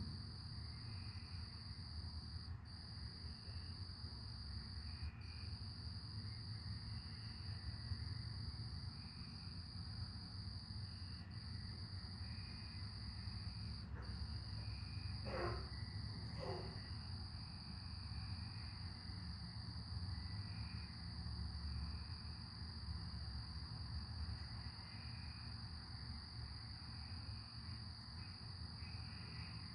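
Night insect chorus: a steady high-pitched cricket trill, with softer chirps repeating about once a second, over a continuous low rumble. About halfway through, two short falling calls sound a second apart.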